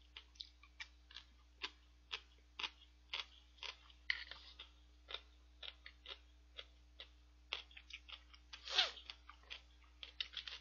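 A person eating udon at a close microphone: soft, irregular mouth clicks and smacks while chewing, about two or three a second, with one louder, longer noise about nine seconds in.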